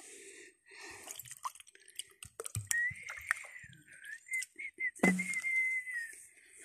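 Elderly woman whistling a wavering, high-pitched tune in short phrases from about three seconds in, whistling to call up the wind. Small clicks and rustles come first, and a short thump sounds about five seconds in.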